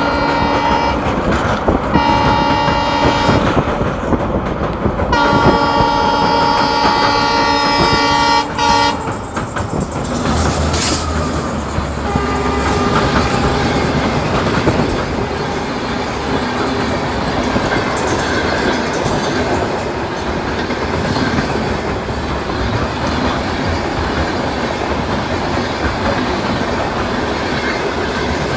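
Train horn blowing three times: a blast ending about a second in, a short blast, then a long one of about four seconds. After that comes the steady rumble of the train rolling across a railway bridge.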